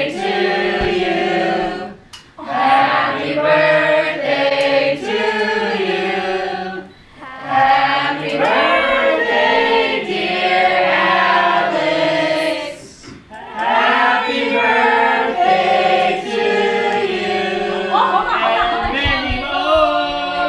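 A group of people singing a song together, in long phrases with short breaks for breath between them.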